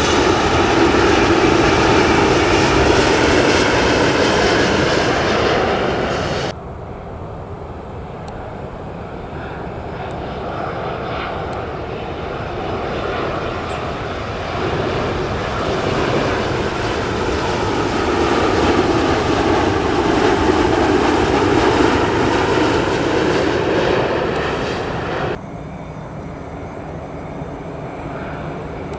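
Jet airliner engines, in three back-to-back passes separated by abrupt cuts. First, the end of an Airbus A330-300's loud pass. About six seconds in, it cuts to a Boeing 787-9 Dreamliner, whose engine noise swells slowly as it passes and then fades. Near the end, it cuts to a quieter Airbus A350-900.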